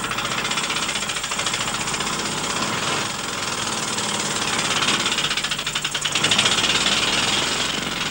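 Old motorcycle-and-sidecar engine running with a rapid, steady putter under load as the outfit climbs a steep gradient; it gets a little louder near the end.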